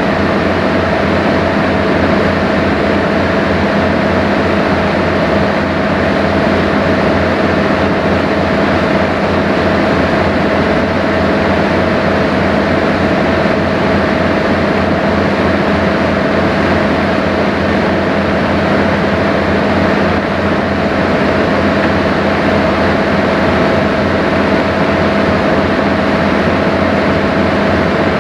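Sightseeing cruise boat's engine running steadily under way: a loud, even drone with a steady hum and a fast low throb.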